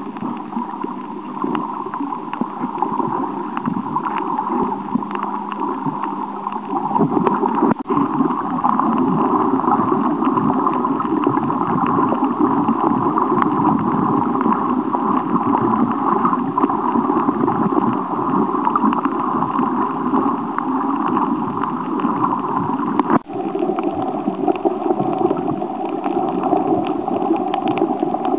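Steady, muffled gurgling water noise as picked up by a camera underwater while snorkelling. It drops out briefly about 23 seconds in and carries on with a slightly lower tone.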